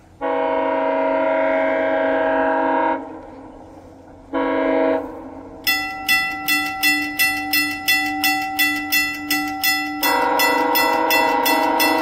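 Approaching commuter train's horn sounding a long blast, then a short one, then another long blast near the end. A bell rings at about three strokes a second from about halfway on.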